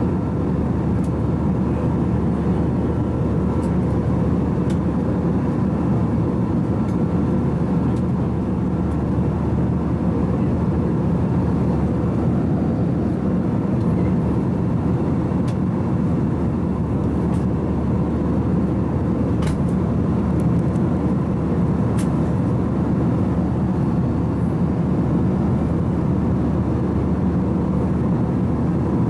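Steady roar of airliner cabin noise from an Airbus A321's engines and airflow, heard from a seat in the cabin, with a few faint clicks.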